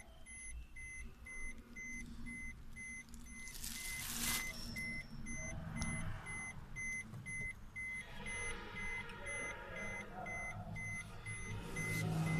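Suzuki Vitara's electronic warning beeper chiming over and over: short, evenly spaced, high beeps, a couple each second. A brief rustle comes about four seconds in.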